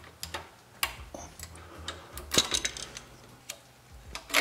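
Light metallic clicks and taps as a pin is worked by hand out of the clevis joint on a tractor's throttle connecting rod, scattered and irregular, with a few together about halfway through and the sharpest click near the end.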